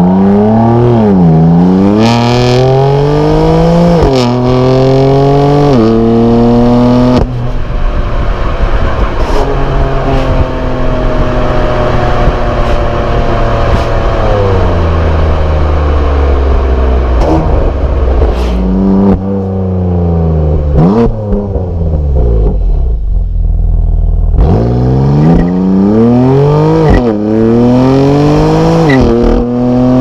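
BMW M4 (F82) 3.0-litre twin-turbo straight-six heard at its tailpipes while driving: the engine revs up hard through quick dual-clutch upshifts, each a sudden drop in pitch. In the middle it eases to a steadier, slowly falling note with a few brief rises and falls, then pulls hard through upshifts again near the end.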